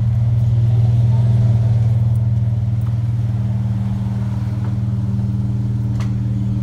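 Chrysler 300 running at a steady idle shortly after a cold start, its exhaust going through Flowmaster Super 10 mufflers: a loud, even, low drone that swells slightly about a second in and then settles.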